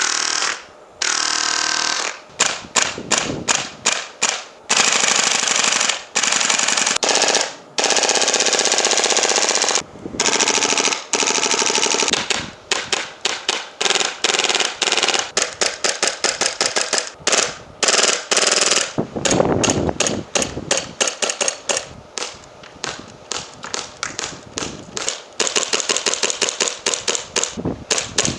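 Airsoft guns being fired one after another. Long unbroken full-auto bursts alternate with rapid strings of separate shots, with brief pauses where one gun gives way to the next.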